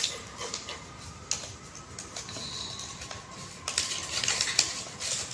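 Crinkling and clicking of a foil-and-plastic blister strip of tablets being handled, with a run of small clicks a little before the end.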